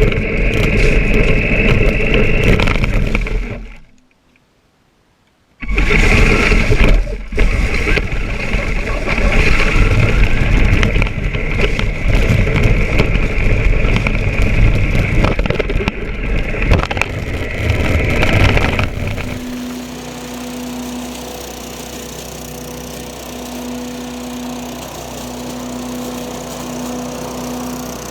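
Soyee 1:10 scale 4x4 electric RC truck driving, its motor and drivetrain giving a loud, rough whine with tyre noise. The sound cuts out completely for about a second and a half about four seconds in, and about nineteen seconds in it drops to a quieter steady noise with a faint hum.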